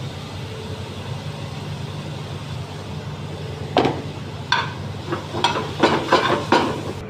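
Steel tongs and a ladle clanking against a metal frying pan as a vegetable stir-fry is tossed: about eight sharp clinks in the last three seconds, over a steady low rumble of the burner and kitchen.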